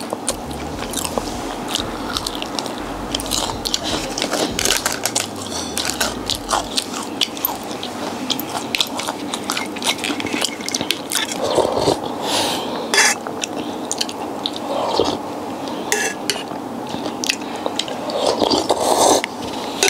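Close-up eating of fried food: crunchy bites and wet chewing, with a few clinks and scrapes of dishes and cutlery.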